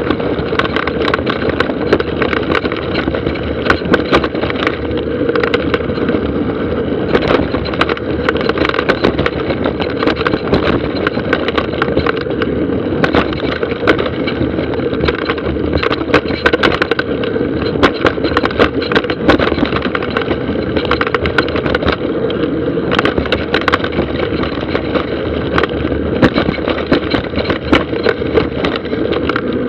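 Mountain bike running down a dry dirt singletrack: a steady loud rush of tyre and trail noise, broken throughout by frequent sharp rattles and knocks as the bike and its mounted action camera jolt over roots and rocks.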